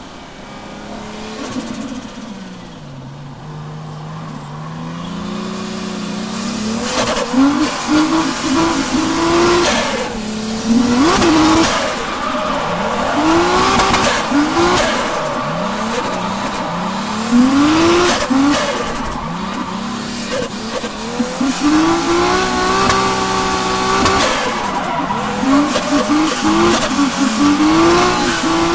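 JZX100 Tourer V's 1JZ-GTE turbocharged straight-six, heard from inside the cabin, running low for the first few seconds and then revving up again and again in quick surges as the car drifts, with tyre squeal over it.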